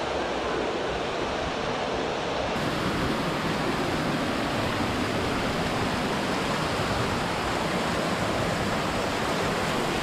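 Spring-fed creek waterfall pouring and splashing over rocks close to the microphone: a steady, unbroken rush of falling water.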